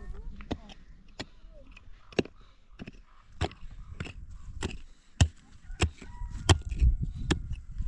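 A hand digging tool striking and chipping into rocky soil, a dozen or so sharp irregular blows, roughly one every half second to second.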